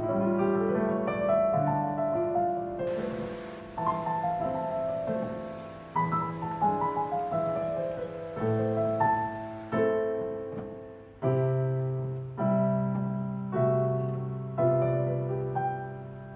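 Solo piano playing a slow piece, notes struck in a steady, unhurried rhythm and left to ring out.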